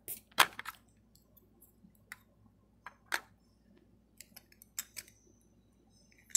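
Light plastic clicks and taps from a hand handling an HO-scale model locomotive and its removable top part, a quick cluster of the loudest clicks right at the start and scattered single clicks after.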